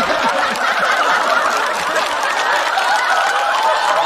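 Studio audience laughing and applauding.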